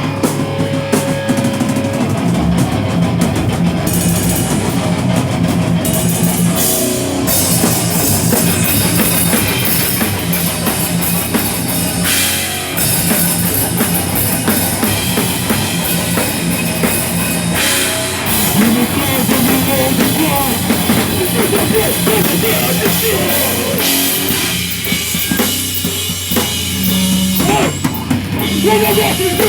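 A live rock band playing loudly, with drum kit, cymbals and bass drum driving the song and distorted guitars.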